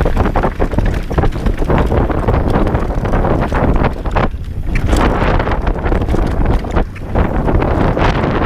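Heavy wind buffeting on the microphone of a moving enduro motorcycle, with frequent knocks and rattles from riding over rough ground.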